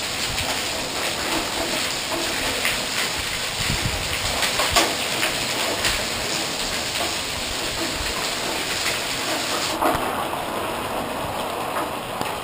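Rain and hail coming down in a storm: a steady hiss of rain with many sharp ticks of hailstones striking throughout.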